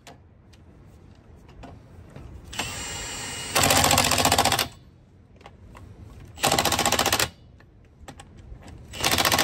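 Milwaukee cordless impact wrench tightening a wheel's lug nuts. It spins briefly, then hammers in three loud bursts of about a second each, the rapid rattling blows of the impact mechanism driving the nuts tight.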